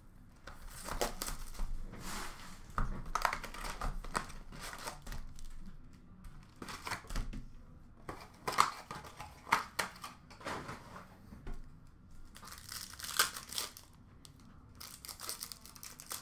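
Upper Deck O-Pee-Chee Platinum hockey card packs being handled and opened: wrappers crinkling and tearing in a series of irregular rustles.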